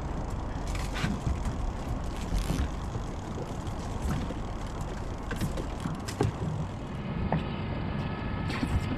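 Fishing boat's outboard motor running steadily, with scattered clicks and creaks from a salmon reel being cranked under load from a hooked chinook.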